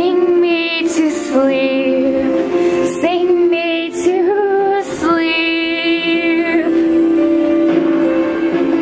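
A female voice sings several long held phrases over the song's steady musical accompaniment. The singing stops about six and a half seconds in, leaving the accompaniment playing on its own.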